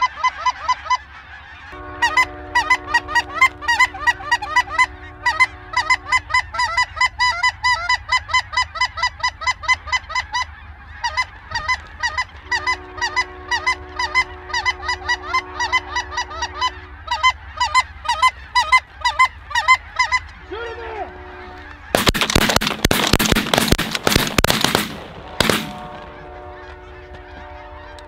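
A large flock of snow geese calling overhead: a dense, continuous chorus of high yelping honks. About three-quarters of the way through, a few seconds of loud noise bursts break over the calling.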